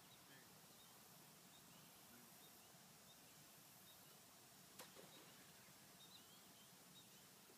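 Near silence with faint outdoor ambience: small bird chirps recur faintly every second or so, and there is a single sharp click about five seconds in.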